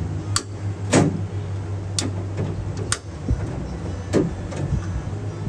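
A cut flap of wheel-tub sheet metal being bent back and forth with locking pliers: a handful of sharp metallic clicks and creaks, the loudest about a second in, over a steady low hum.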